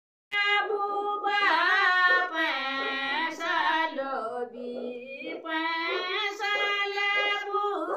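A high voice singing a slow intro jingle of long, wavering held notes.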